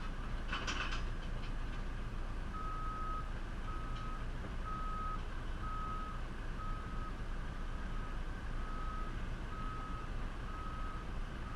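Reversing alarm on a JCB 3CX backhoe loader beeping steadily about once a second, nine beeps starting a couple of seconds in, over the machine's diesel engine running. A brief rattle sounds near the start.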